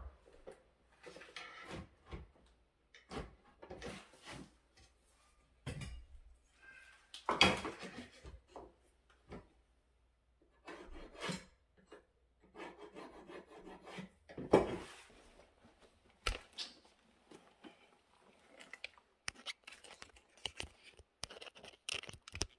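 Wooden boards being handled: on and off rubbing, sliding and scraping of wood on wood, with a few sharper knocks, the loudest about a third of the way in and about two thirds in.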